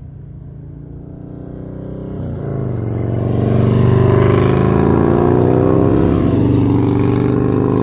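Motorcycle engine running and revving, getting louder over the first few seconds, then holding steady.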